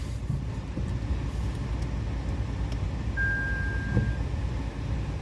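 Tata Nexon EV cabin with the car in neutral: a steady low rumble and no electric motor sound, which the owner points to as the car making no sound when revved in neutral. One high electronic beep lasting about a second comes about three seconds in.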